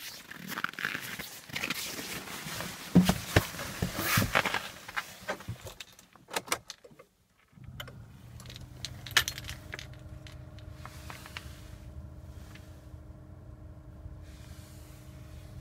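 Keys jangling and clicks and rustling as the car door is opened and someone settles into the seat. After a short near-quiet pause, the Hyundai i30's 1.6 CRDi four-cylinder turbodiesel starts abruptly about halfway through and settles into a steady idle. This is a cold start at −25 °C after the car has stood for about 20 hours.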